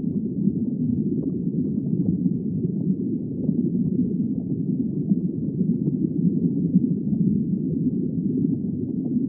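Underwater ambience: a steady, muffled low rumble and gurgle of water, with no distinct calls or clicks.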